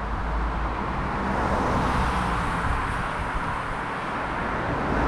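Road traffic noise: a steady wash of car tyre and engine noise from vehicles driving by on the street, swelling slightly in the middle.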